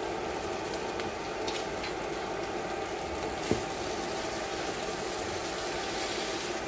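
Steady sizzling hiss of an omelet cooking in a nonstick frying pan on a countertop electric burner. A spatula knocks once against the pan about three and a half seconds in.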